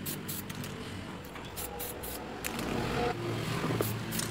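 Aerosol spray-paint can hissing in a pass of about two seconds partway through as it lays a thin coat of metallic black on a steel swing arm, with a few light clicks from the can being handled.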